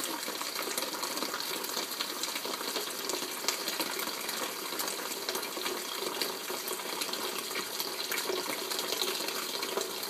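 Thin stream from a kitchen faucet running at roughly 0.9 to 1 gallon a minute, splashing steadily into the water in a plastic bucket.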